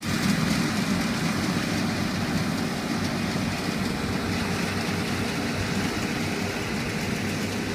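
Combine harvester running steadily: a constant engine hum under a broad, even mechanical noise from the working machine.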